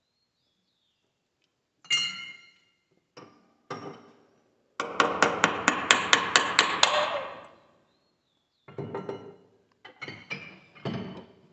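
Hand tools knocking and clinking on the bare cylinder-head area of a New Holland TL75 tractor engine. A single ringing metal clank comes first, then a few lighter knocks, then a quick run of about a dozen sharp metallic strikes, and more clanks near the end.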